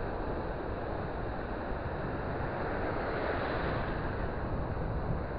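Surf breaking and washing through the shallows around the wader's legs, with wind on the microphone. The wash swells a little about three seconds in.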